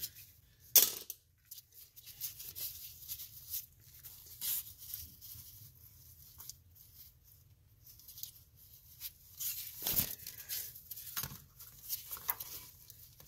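Hands and tools working on wiring and hoses under a truck's engine: scattered clicks and short rustles, with a sharp click about a second in and another near ten seconds.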